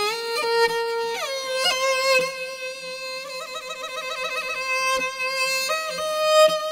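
Background music: a solo melody with long held notes that slide from one pitch to the next, with a rapid trill in the middle.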